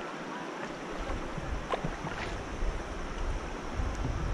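Swift river water rushing over rocks around a kayak, with splashes from the paddle strokes; wind starts to rumble on the microphone about a second in.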